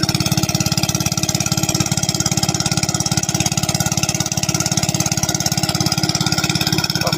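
Small engine running steadily at an even, fast beat of about a dozen pulses a second.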